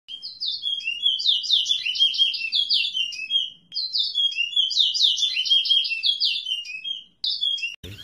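A songbird singing two long phrases of rapid, sweeping chirps, each about three seconds long, then a short snatch of song that breaks off just before the end.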